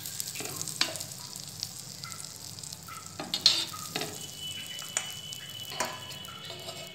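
A block of butter melting and sizzling in a hot pan, a steady crackling hiss, with several sharp scrapes and taps as a metal spatula pushes it across the pan.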